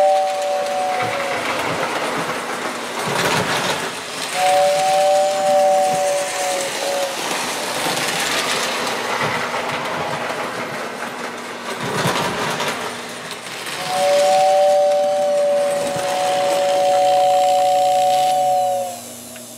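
O-gauge model train running on the layout's track with a steady rattle, while its whistle or horn sounds a two-note chord three times: a blast ending about a second in, another a few seconds later, and a long one near the end.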